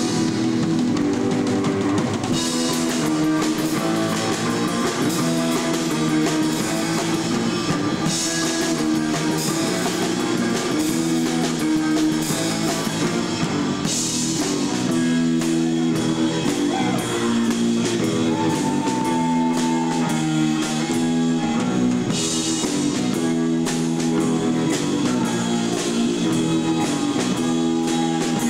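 Rock band playing live: electric guitar over a steady drum-kit beat.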